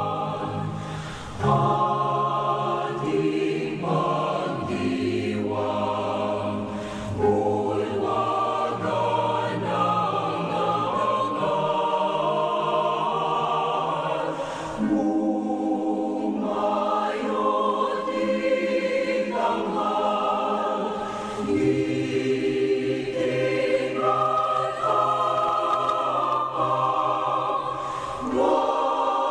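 Background music led by choir-like voices holding chords that change every second or two.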